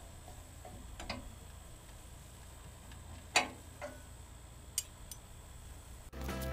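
A wrench clicking and clinking against metal a few times, at uneven intervals, the loudest clink about three and a half seconds in, as it works the nut on the belt's tensioning idler pulley and comes off. Music starts just before the end.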